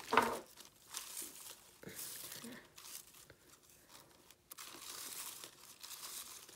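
Shredded crinkle-cut paper filler rustling and crinkling as hands pull tangled yarn out through it, in two spells: about a second in, and again near the end.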